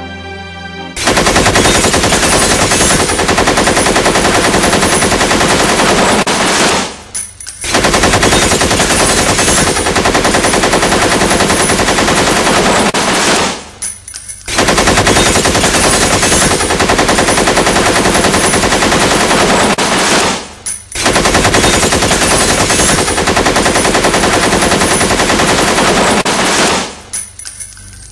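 Machine-gun fire sound effect: four long stretches of rapid automatic fire, each about six seconds, with brief pauses between them.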